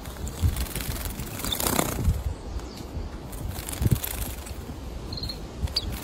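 A small white-eye bathing in a ceramic bird bath: light splashing and wing-fluttering in shallow water, with a brief splashing flurry about a second and a half in. A short high chirp comes near the end.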